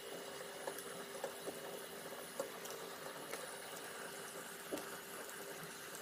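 UV printer's film laminating rollers running, a steady low machine hum with a faint steady tone, broken by scattered light clicks and crackles as the printed golden film feeds off the rollers.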